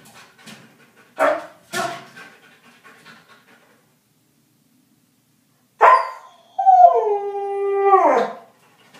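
Siberian husky in a wire crate giving a few short breathy huffs, then after a pause a sharp yelp and a long howl of about two seconds that drops in pitch at the end.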